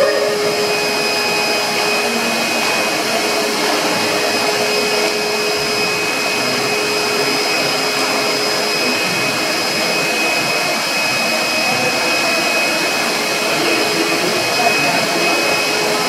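Vacuum cleaner motor running steadily: an even rushing hiss with a few thin, steady whining tones held above it.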